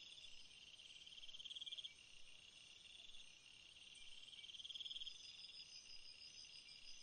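A faint chorus of night insects trilling high and fast, with crickets prominent. The trilling swells louder twice, about a second and a half in and again about five seconds in.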